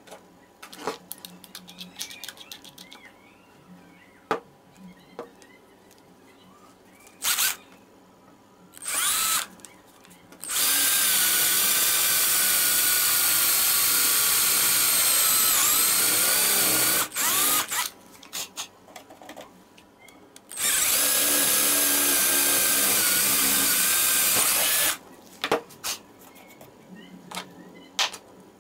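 Power drill boring a hole through a white-faced board with a makeshift cutter in place of a drill bit. The motor runs in a couple of short blips, then two long runs of several seconds each, its steady whine sagging slightly under load, with small knocks of handling between runs.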